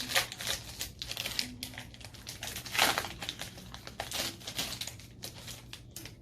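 Foil Pokémon booster pack wrapper crinkling as it is handled, with cards rustling: an irregular run of short crackles, loudest about three seconds in.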